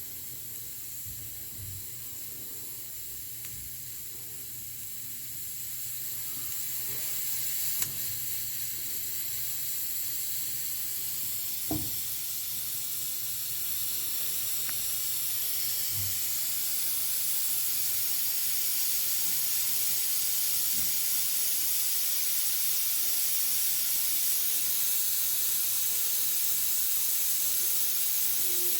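Pressure cooker letting off steam: a steady high hiss that grows louder from about five seconds in and then holds, with a couple of faint clicks.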